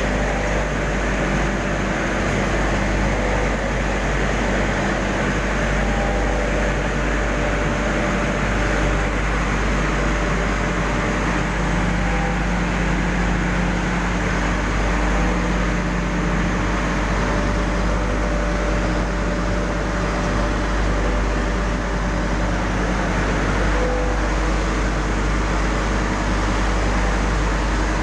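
Steady machinery drone from an industrial furnace installation: a constant deep hum with several held tones over an even mechanical noise, unchanging throughout.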